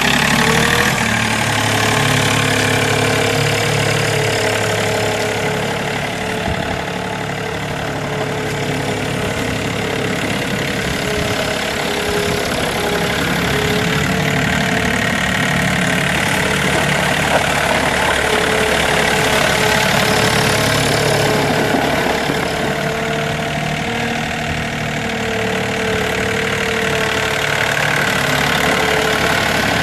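2008 John Deere 4105 compact tractor's Yanmar three-cylinder turbo diesel running steadily as the tractor drives, with a steady whine above the engine note.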